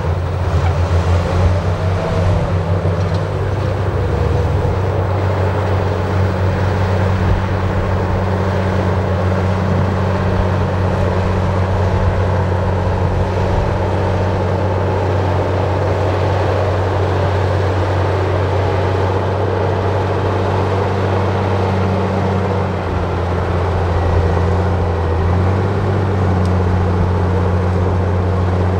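Heavy diesel engine of a bulldozer running steadily under working load. Its note shifts a few times, in the first few seconds and again about three-quarters of the way through.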